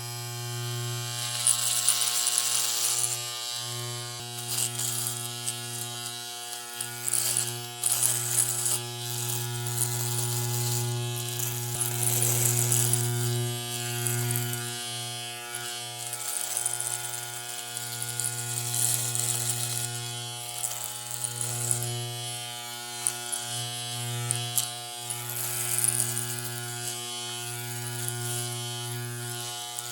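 Electric hair clipper buzzing steadily, its pitch dipping briefly now and then. Irregular surges of crisp high hiss ride over the buzz as the blades cut through hair.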